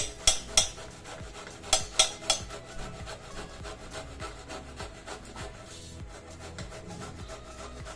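Boiled cauliflower florets being grated by hand on a grater: a run of rapid, even rasping strokes, after a few sharper knocks in the first two seconds or so.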